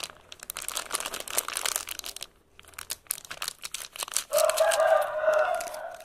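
Plastic packet of seasoned flour crinkling as it is handled and tipped out over a plate. About four seconds in, a loud, long pitched call takes over for about two seconds.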